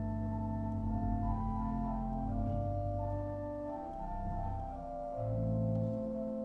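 Pipe organ playing slow, sustained chords over deep bass pedal notes, the chords changing every second or so.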